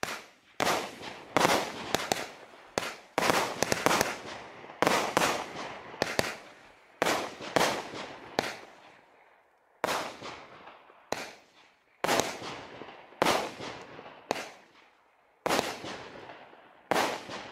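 Nico "Magic Djinn" 16-shot, 15 mm consumer fireworks battery firing: a run of sharp shots, about two a second, each trailing off in a fading hiss, with brief pauses about nine and fifteen seconds in.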